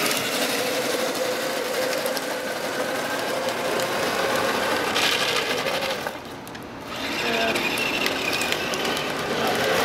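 Electric drive of a remote-controlled Speed Racer Mach 5 ride-on toy car whirring steadily as it drives over asphalt, its hard plastic wheels rolling on the surface. The sound dips briefly a little past halfway.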